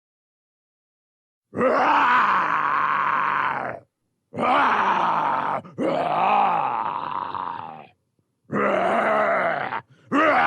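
Monster creature sound effects: a run of growling groans with a wavering pitch, each one to two seconds long and cut off abruptly. Four come one after another after about a second and a half of silence, and a fifth starts right at the end.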